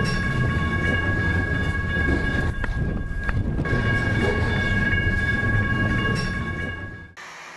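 Train running with a low rumble and a steady high-pitched tone over it. The tone drops out for about a second around three seconds in and then returns. Everything cuts off abruptly near the end.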